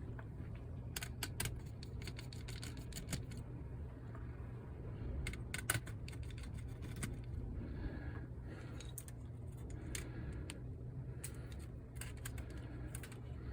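Scattered light clicks and taps of small screws and plastic parts being handled while a PS5 Slim disc drive is taken apart, over a steady low hum.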